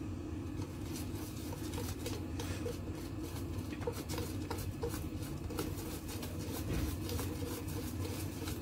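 Wire whisk beating thin, runny chocolate cake batter in a metal bowl: quick repeated clicks and scrapes of the wires against the bowl, over a steady low background hum.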